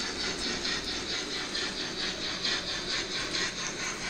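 OO gauge model goods train rolling along its track: a steady rattling hum of the wheels and motor, pulsing evenly at about five beats a second.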